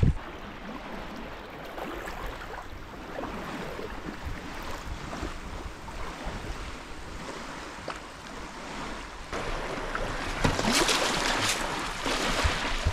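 Water splashing and lapping around a sea kayak as it is paddled into the shallows. About nine seconds in the sound cuts to small waves washing onto a pebble beach, with wind gusting on the microphone.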